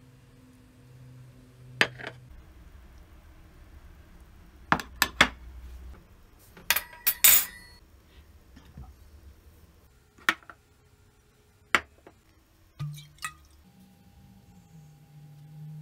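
Glassware and crockery being handled and set down on a table: a series of sharp clinks and knocks, some in quick clusters. Near the end, a clear liquid is poured from a glass bottle into a small shot glass.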